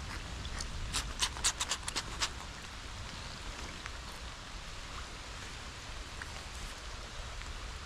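Steady rain falling, an even hiss, with a quick irregular run of sharp ticks in the first two seconds or so.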